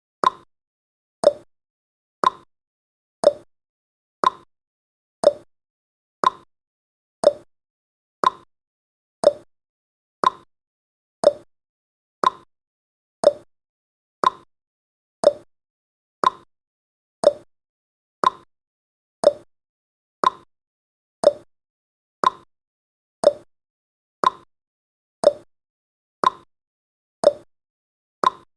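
Clock-style ticking sound effect of a countdown timer, one sharp tick every second, the ticks alternating between a higher and a lower pitch like a tick-tock.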